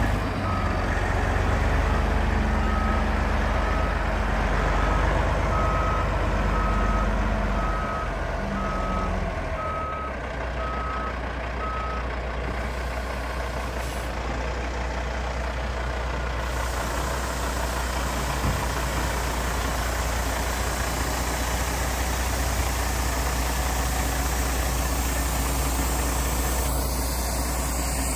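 Tandem-axle dump truck's diesel engine running as the truck reverses, its backup alarm giving regular beeps at one pitch that stop about twelve seconds in. The engine keeps running steadily after the beeping ends.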